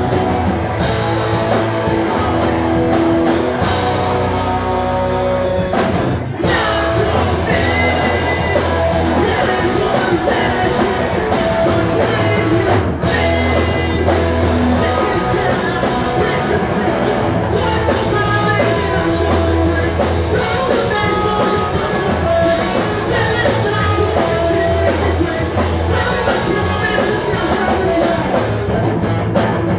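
Live pop-punk band playing loudly: distorted electric guitars, bass, drums and a singer, with two very short breaks in the music about six and thirteen seconds in.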